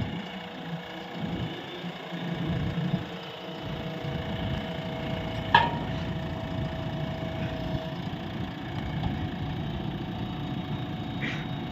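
JCB excavator's diesel engine running steadily, with a single sharp click about halfway through.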